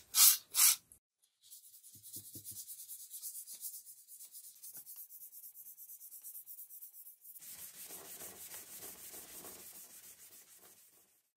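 Three short sprays from an aerosol can with a straw nozzle at the start, then sandpaper rubbed by hand over a steel knife blade in quick back-and-forth strokes. The strokes get heavier about seven seconds in.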